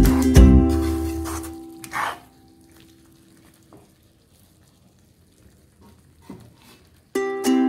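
Background music fades out in the first two seconds. Then comes faint sizzling of chicken masala frying in a kadai, with a few light knocks of a spatula stirring it. The music comes back near the end.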